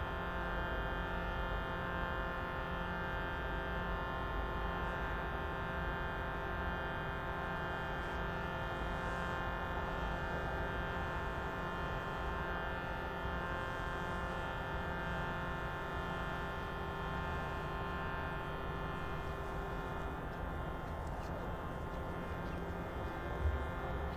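A steady musical drone: many pitches held together without change, continuing after the singing stops. A soft low thump comes near the end.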